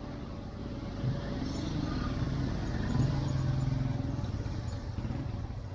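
A motor vehicle's engine running close by on the street, growing louder from about a second in to its loudest around the middle and then easing, over general street noise.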